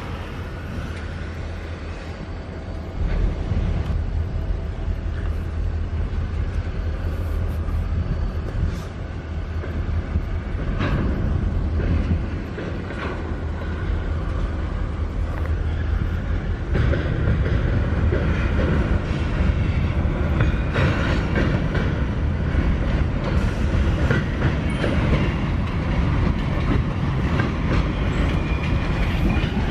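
Train rolling along the rails: a steady low rumble of wheels with scattered clanks. It grows louder about three seconds in and again about halfway through, with faint thin wheel squeal in the second half.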